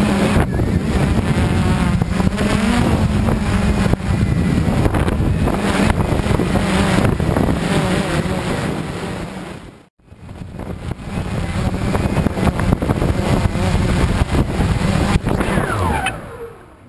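Walkera QR X350 quadcopter's motors and propellers buzzing steadily in flight, wavering in pitch as the throttle changes, with wind noise on the onboard microphone. The sound breaks off for a moment about ten seconds in. Near the end the pitch falls as the motors spin down and the quad comes to rest on grass.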